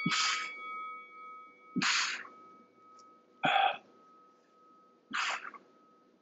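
A man's sharp, forceful exhalations, one about every 1.7 seconds, in rhythm with glute bridge march reps. Under them a single ding from the interval timer rings on and fades slowly.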